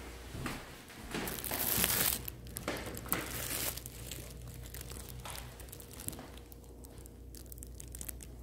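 Rustling, crinkling noise starting about a second in and lasting about a second, followed by a few scattered light clicks, over a low steady hum.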